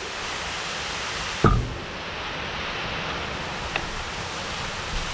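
Steady background hiss, with a single knock about a second and a half in as a plastic bottle of bar oil is set down on a wooden workbench, and a light click a couple of seconds later.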